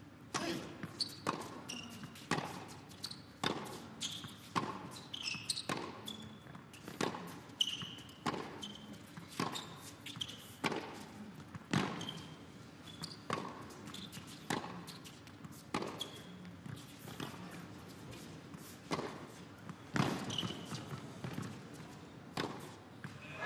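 Tennis ball being hit back and forth with racket strikes and bounces on an indoor hard court, sharp hits about once a second, with short high squeaks of sneakers on the court between them. Crowd applause breaks out at the very end.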